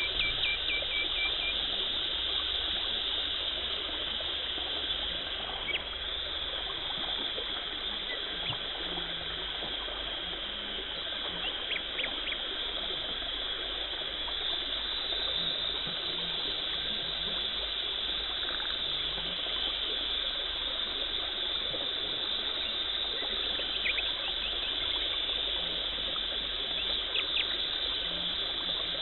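Dental cleaning equipment at work: a steady watery hiss and trickle from the water spray and suction, with a few faint clicks scattered through.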